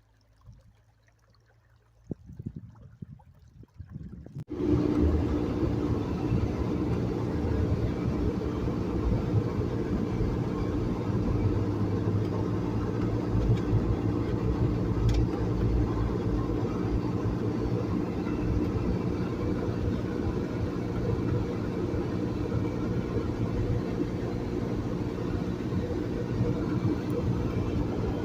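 A few faint low knocks, then, about four and a half seconds in, a vehicle engine running steadily with a low rumble sets in abruptly and holds.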